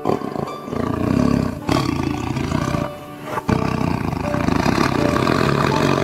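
A tiger roaring twice, two long, loud, rough roars with a short break about halfway through, over background music.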